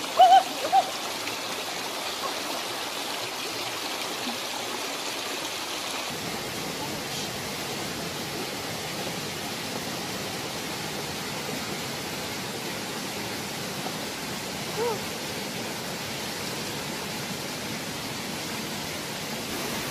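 Shallow rocky stream rushing steadily over stones. A few short, loud high calls stand out just after the start and once more about fifteen seconds in.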